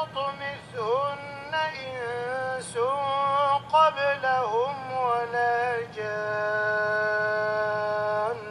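An imam's melodic Qur'an recitation in Arabic: one male voice chanting ornamented phrases with sliding pitch and short pauses, then holding one long steady note near the end.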